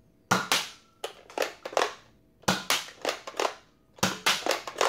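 Buzz Bee Air Warriors Carl's Revolver foam-dart blaster being primed and fired in quick succession: four clusters of sharp plastic clacks and clicks, about a second apart.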